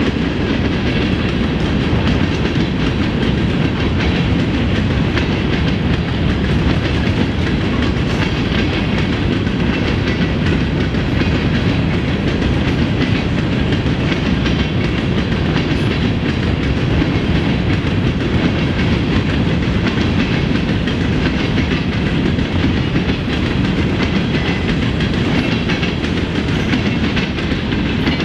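Freight train of covered hopper cars rolling steadily past, a continuous rumble of steel wheels on rail with light clickety-clack.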